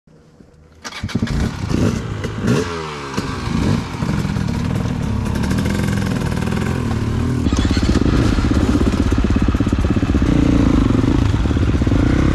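Dirt bike engine starting to sound about a second in, revving up and down, then running steadily and louder for the rest of the stretch, with some clatter.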